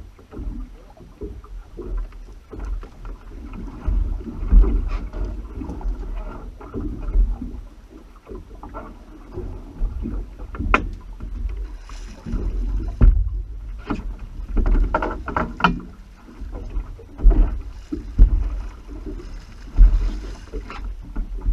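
Sea water sloshing and knocking around a small boat, with a low rumble and irregular thumps and splashes.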